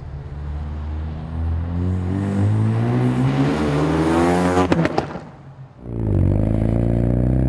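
Ford Mustang EcoBoost's 2.3-litre turbocharged four-cylinder running through an un-catted MRT off-road turbo-back exhaust, accelerating with its note rising for about four seconds. A few sharp clicks and a short dip follow. Near the end it comes back loud and steady from close to the exhaust tip, pitch slowly climbing.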